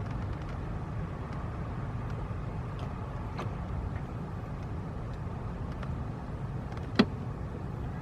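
Steady low background rumble with a few faint clicks and one sharp click about a second before the end; the engine is not yet running.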